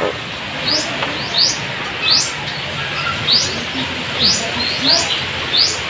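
A bird chirping outdoors: a short, quick rising chirp repeated about every half second to a second, over a steady background hiss.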